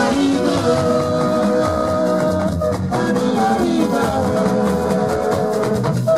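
Live band music with drum kit and guitar playing steadily, and a woman's voice singing into a microphone over it.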